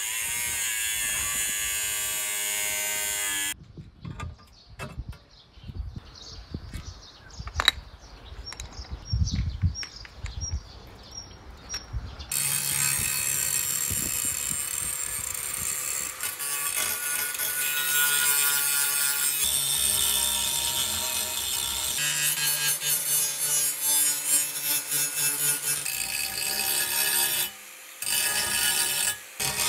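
Angle grinder grinding the edge of a round stainless steel plate, running for a few seconds, then a pause of about eight seconds with clinks and knocks, then grinding again for most of the rest.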